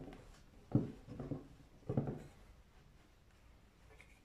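A pipe clamp being handled: three short knocks of its cast jaws on the steel pipe and the wooden block, about a second in, a little later, and at two seconds.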